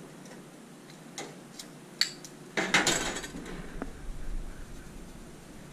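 Metal tongs clicking and clinking against a grill's wire grate while turning pieces of meat: a few sharp taps in the first two seconds, then a louder, longer clatter about two and a half seconds in.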